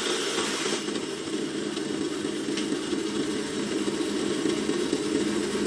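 Bandsaw running, cutting through plywood with a hiss that drops away about a second in as the blade comes free of the wood, after which the saw keeps running steadily without load.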